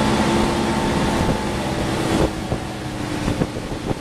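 Evinrude 150 outboard motor running steadily at speed while towing a water skier, with the wake rushing behind it and wind buffeting the microphone.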